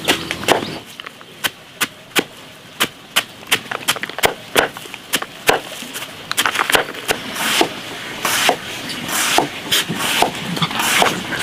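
A knife chopping a banana stem into thin slices on a wooden block, in sharp, even chops about three a second. From about halfway, the chopping becomes less regular and mixes with the rustle of the shredded stem being handled.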